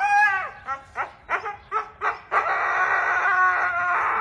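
A dog talking back while it is being scolded. It opens with a long call that bends in pitch, gives several short yaps, then makes one long, drawn-out grumbling howl.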